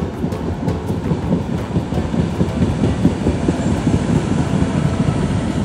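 MBTA Green Line light-rail train passing on street-running tracks: a steady rumble of steel wheels on rail, loudest about halfway through.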